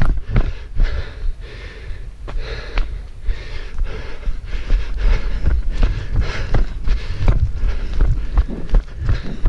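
A runner breathing hard mid-race, a rough breath about once a second, over the steady thud and scuff of running footsteps.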